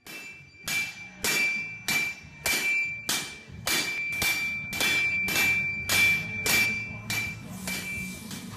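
Two sledgehammers striking a long metal bar on an anvil in turn, about fifteen blows at a steady pace of nearly two a second, each leaving a high metallic ring.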